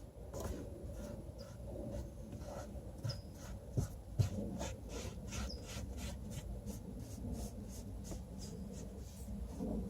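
Hand rubbing and working the headliner fabric: quick scratchy strokes, about three a second, with two soft thumps a little under halfway and a few faint high squeaks.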